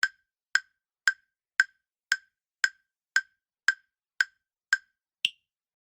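Countdown-timer ticking sound effect: ten even, sharp ticks about two a second, then one higher-pitched tick near the end, marking the time allowed to answer.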